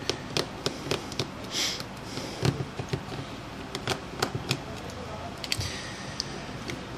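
Irregular small clicks and taps as hands handle the opened smartphone's frame and parts on a desk.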